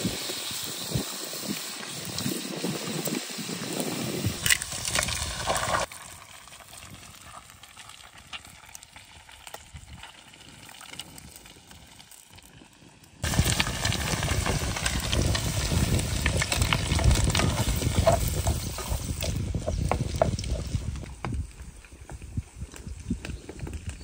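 Butter sizzling and bubbling in a copper pan as kenger (gundelia) stalks and an egg fry over a wood fire, with scattered small clicks. The sizzle drops away abruptly about six seconds in and comes back loud about seven seconds later.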